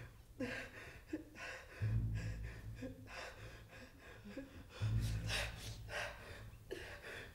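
A man breathing heavily in ragged gasps, with a deep low drone that swells up twice, about three seconds apart.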